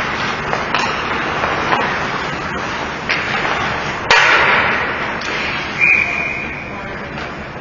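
Ice hockey play: a steady scraping haze of skates on ice, broken by sharp clacks of sticks and puck, the loudest a hard crack about halfway through. A short single-pitched whistle blast follows about three-quarters of the way through, typical of a referee stopping play.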